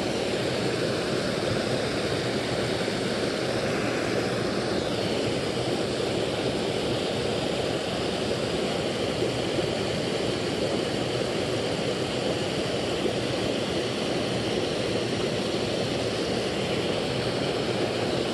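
Small creek spilling over a low cascade of logs and debris: water rushing steadily.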